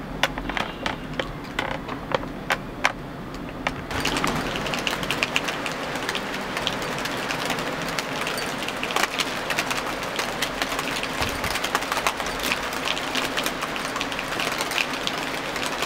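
Rain falling on a hard surface: a few separate, sharp drop taps at first, then about four seconds in a sudden change to heavy rain with dense, continuous tapping.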